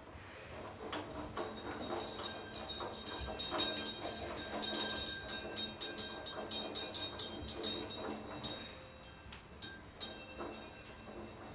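Brass clockwork handled by hand: a run of light metallic clicks and clinks, with faint high ringing tones lingering from the skeleton clock's strike hammers and bells. The clinking is busiest in the middle and thins out near the end.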